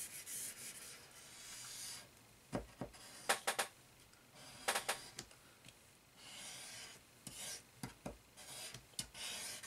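Zig two-way glue stick rubbed across a sheet of paper in several strokes of soft scratchy hiss, with a few light knocks in between.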